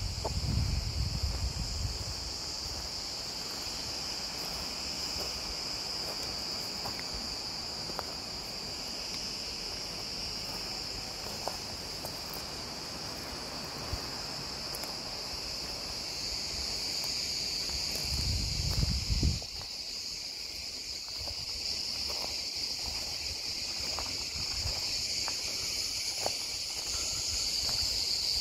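Steady high-pitched chorus of insects chirring in the trees, with low rumbles near the start and again about two-thirds of the way through.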